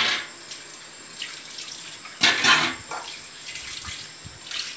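Kitchen tap running with a steady hiss, with two short, louder bursts of noise: one at the start and one about two seconds in.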